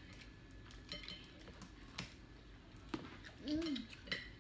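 Scattered clinks and taps of dishes and utensils at a table during a meal, with a short hummed 'mm' about three and a half seconds in.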